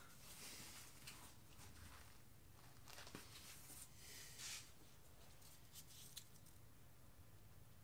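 Faint rustling and light scraping in short bursts from gloved hands handling a wooden stick and wiping at a wet canvas, with a few small clicks, over a low steady room hum.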